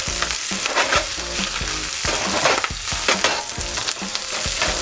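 Scallions, ginger, garlic and red chili sizzling in hot oil over high heat in a nonstick pan: the aromatics being flash-fried until fragrant. A wooden spatula stirs them, with many short scrapes and taps against the pan.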